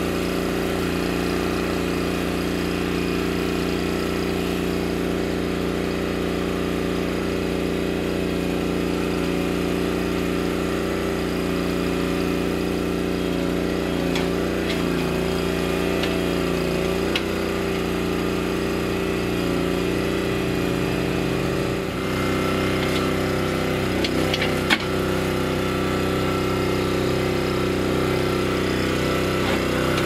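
Small engine of a homemade CAD Digger Model 728 mini backhoe running steadily while the backhoe is worked, its note wavering in pitch midway and shifting about 22 seconds in. A single sharp click comes near 25 seconds.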